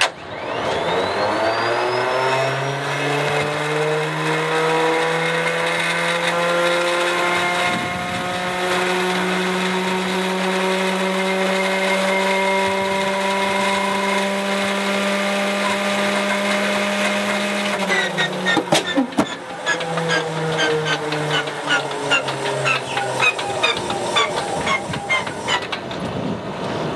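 Starter on a Stinson L-1's Lycoming radial engine winding up with a rising whine that levels off and holds steady. At about eighteen seconds it engages with a clunk and turns the propeller over, the whine sinking as a rapid, irregular clatter of pops and knocks sets in. The engine does not catch: a failed start attempt.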